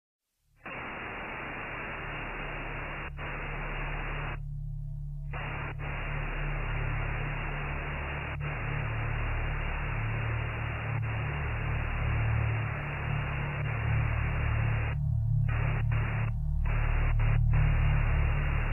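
TV static hiss over a low steady hum, slowly growing louder. The hiss cuts out once for about a second early on and then several times briefly near the end, leaving only the hum.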